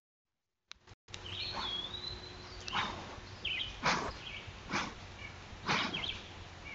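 Deer sniffing close to a trail camera's microphone: short breathy puffs about once a second, starting a second in, the last the loudest. A bird whistles one long rising note and chirps a few times behind it.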